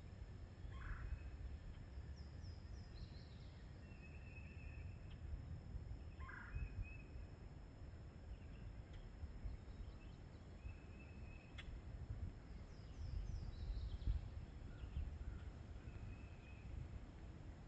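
Several birds calling over a steady low rumble. Two short pulsed calls come about five seconds apart, and higher descending chirps and brief single-note whistles are scattered between them.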